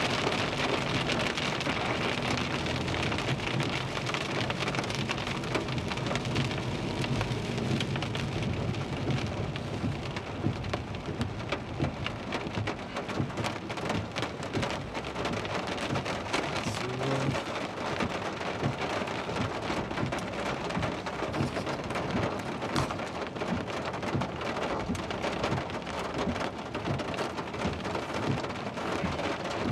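Heavy rain falling steadily, with many close drop hits. Thunder rumbles low through roughly the first ten seconds, then the rain carries on alone.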